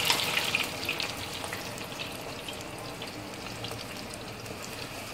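Chopped onions sizzling in hot ghee in a clay handi (earthenware pot), just added to start browning. The sizzle is loud at first and settles within about two seconds to a steady, lower sizzle.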